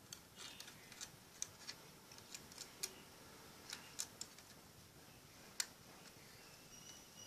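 Faint, irregular small clicks and ticks of a plastic universal cell phone battery charger being handled, its metal contact pins moved by fingers; the sharpest click comes about five and a half seconds in.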